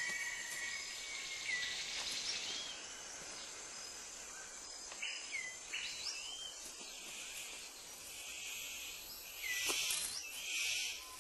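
Rainforest ambience: a steady insect drone with repeated short, curved whistled bird calls. Near the end come three louder rustling swishes.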